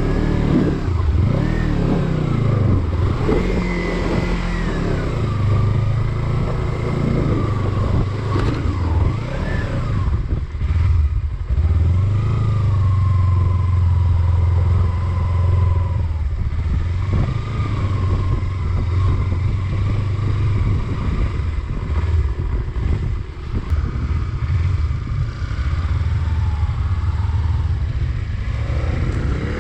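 Motorcycle engine running in a low gear, its pitch rising and falling as the throttle is opened and closed.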